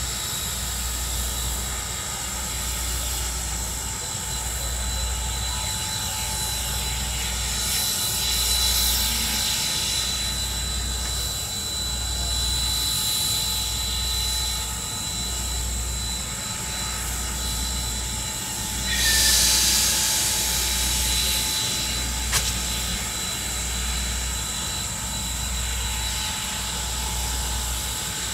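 Strasburg Rail Road steam locomotive working slowly under heavy smoke, with a low, even pulse about every second and a half to two seconds. A burst of hissing comes about two-thirds of the way through, and a single sharp click follows shortly after.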